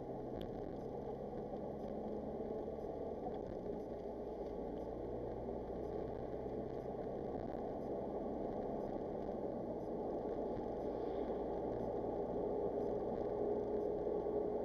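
Car engine and road noise heard inside the cabin. It is a steady rumble that grows slightly louder as the car gathers speed out of a roundabout onto the open road.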